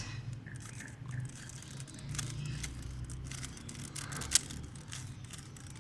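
Rubik's cube layers being twisted by hand: scattered soft plastic clicks and scrapes, with one sharper click about four seconds in.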